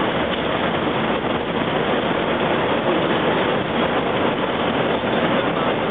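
Intercity coach on the move: steady road and engine noise with no change in pace.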